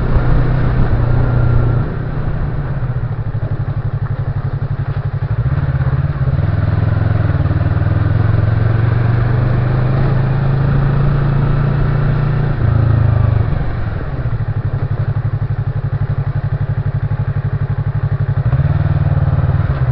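Motorcycle engine running at low revs while riding a slick red-clay dirt road, the note dropping and picking up again a few times as the throttle changes. The road tyres spin and slide on the mud.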